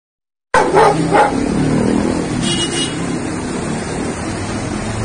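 Two loud dog barks just after the sound begins, over steady street traffic noise; a brief high-pitched squeal comes about halfway through.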